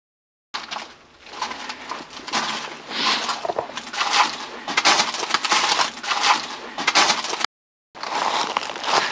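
Footsteps crunching and snapping through dry leaves, twigs and debris, with a short break to silence about seven and a half seconds in.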